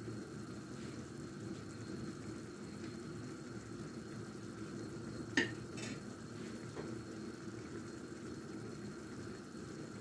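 Pot of soup broth simmering with a steady low bubbling while a metal spoon stirs it. About five seconds in there is a sharp clink as the spoon is laid on a plate, then a lighter clink just after.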